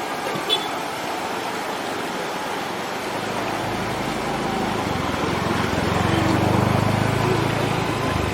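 An engine running, growing louder from about three seconds in and dropping off near the end, over a steady background hiss.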